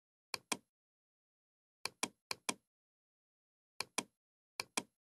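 Computer mouse clicking: five pairs of short, sharp clicks, each pair a button press and release about a fifth of a second apart, with dead silence in between.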